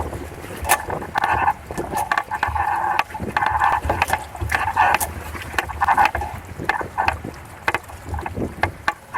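Water rushing and splashing against the hulls of a Hobie Cat 16 catamaran under way, coming in uneven surges with sharp splashy ticks, over a low rumble of wind on the microphone.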